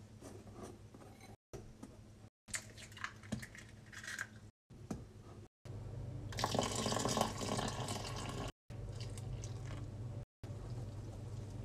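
A metal wire whisk clicking and scraping through flour and cocoa powder in a ceramic bowl, then liquid poured into the bowl in a loud rush about six seconds in, with the whisk working into the wet batter after it. The sound breaks off into brief silences several times where clips are cut together.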